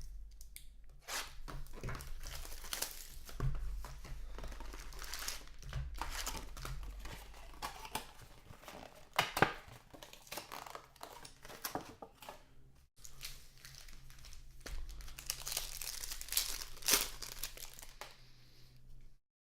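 Trading card packaging crinkling and tearing as it is opened, with a steady run of crackles and a couple of sharper snaps, one about halfway through and one near the end.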